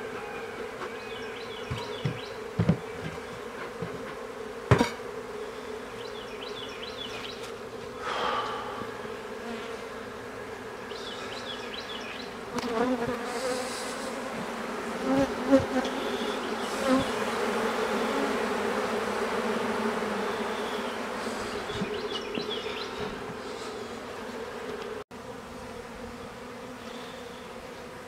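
Honeybees buzzing in a steady hum around an open hive, growing louder around the middle. A few sharp knocks sound in the first few seconds.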